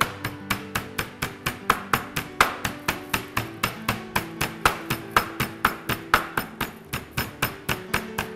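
Wooden rolling pin beating a chicken breast flat under a plastic sheet on a plastic cutting board, a fast even run of thuds at about five strikes a second, used in place of a meat mallet. Background music plays underneath.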